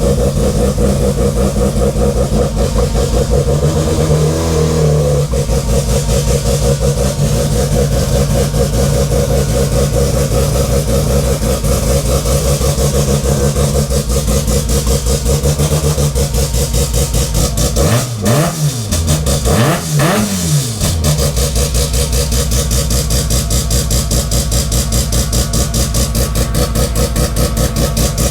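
Car engine idling steadily with a fast, even beat, revved briefly twice in quick succession about two thirds of the way in.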